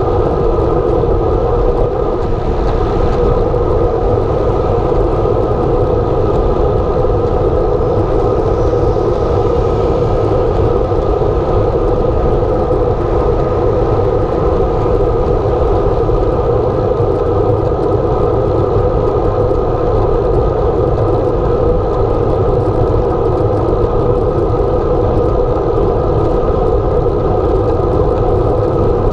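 Steady rush of wind and tyre noise from a road bicycle rolling along asphalt at speed, heard through a camera mounted on the bike.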